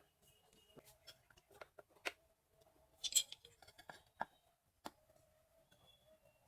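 Faint, scattered clicks and taps at uneven intervals, with one brief louder burst about three seconds in.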